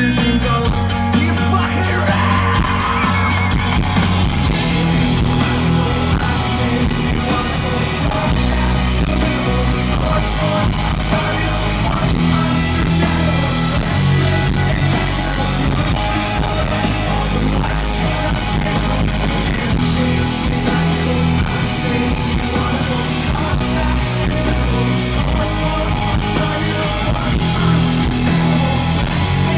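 Live rock band playing loud, with electric guitar, bass guitar and drums, and voices singing and yelling over it, heard from among an arena crowd.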